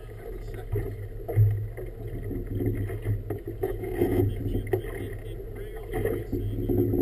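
Small committee boat moving through choppy water: water slapping and splashing against the hull in irregular surges over a steady low engine hum, with wind on the microphone.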